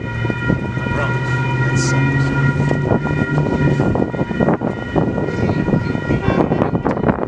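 A steady high-pitched tone made of several pitches at once sounds throughout. Under it a low engine hum runs and stops about four seconds in, with a train approaching in the distance.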